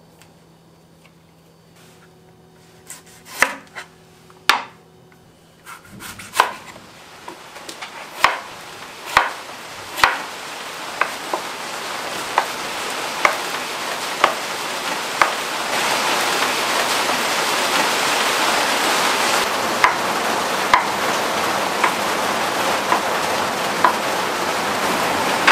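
Kitchen knife chopping through mushrooms and tofu onto a wooden cutting board, sharp chops about once a second. A steady hiss swells in behind the chopping from about six seconds in.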